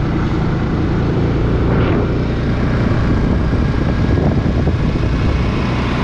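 Steady engine and road noise of a vehicle driving along a road, with a heavy low rumble.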